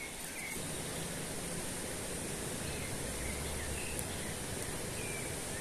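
Steady outdoor background hiss with a few faint, short bird chirps scattered through it.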